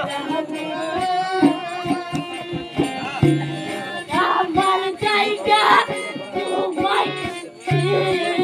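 Folk music with singing, and drum strokes keeping a steady beat.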